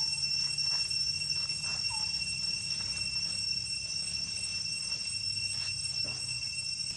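Insects droning in a steady, unbroken high-pitched tone, with a faint short chirp about two seconds in.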